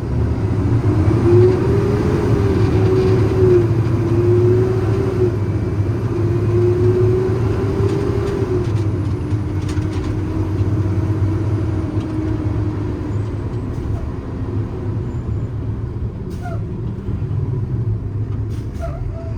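Cummins 6.7 ISB diesel engine and drivetrain of a medium-duty truck running under way, heard from inside the cab, with a steady low rumble and a whine that rises and falls in pitch and eases off a little after the middle.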